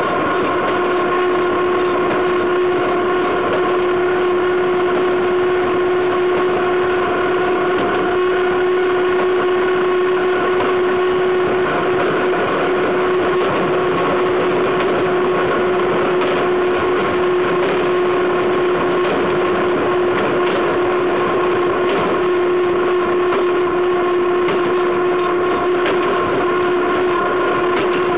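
Freight wagon wheels rolling on the rails at speed, heard close to the bogie: a loud, steady rolling noise with a constant pitched tone running through it.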